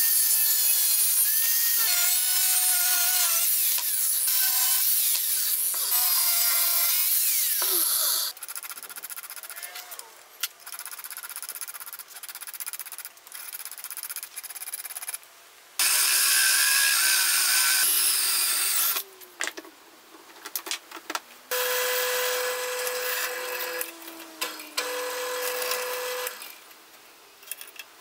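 Angle grinder with a cut-off disc slicing through a steel flat bar, its whine wavering as the disc bites. Shorter bursts of grinding and scraping follow, and near the end a machine hums at a steady pitch.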